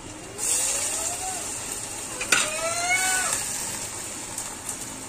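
Oil in a cooking pan starts sizzling suddenly under a second in, as chopped potato, onion and curry leaves go into it, and keeps sizzling steadily. A sharp clack a little over two seconds in. Two long calls that rise and fall in pitch sound over the sizzle.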